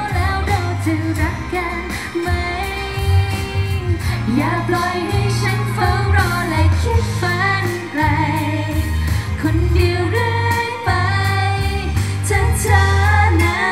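Three women singing a Thai pop song into microphones over a backing track with a steady drum beat and heavy bass.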